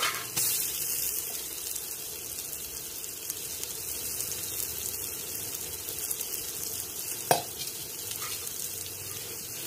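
Sliced onions and green chillies sizzling steadily as they fry in oil in a pot over a wood fire, with mint and coriander leaves just added on top. A single sharp click stands out about seven seconds in.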